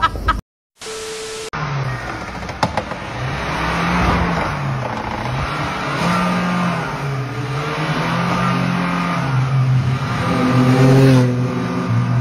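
A small hatchback's engine revving up and down again and again as it shunts back and forth while parking, nudging the parked car in front. Before it comes a brief gap and a short steady tone, and a couple of clicks sound about two and a half seconds in.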